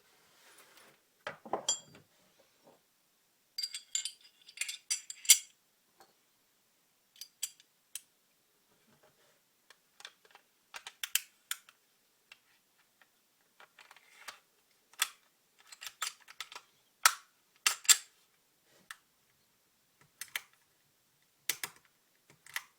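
Sharp metallic clicks and clacks of an FN FNP-40 pistol being handled and its parts worked, coming irregularly, with a quick run of clicks a few seconds in.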